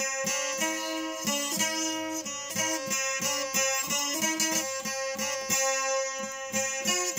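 Instrumental break in a folk song: a plucked string instrument picks out a quick melody over a steady beat and a held drone note.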